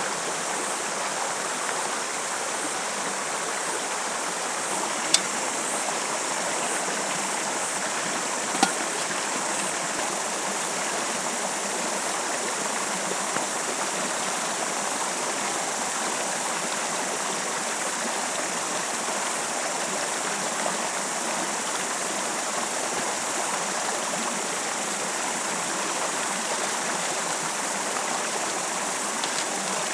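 Rocky stream rushing over boulders and white water in a steady, even rush. Two short, sharp clicks stand out about five seconds in and again a few seconds later.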